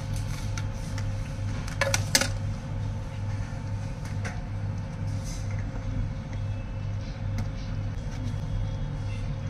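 Steady low mechanical hum with a slow, even pulse, and two sharp clicks close together about two seconds in as small lab items are handled on the bench.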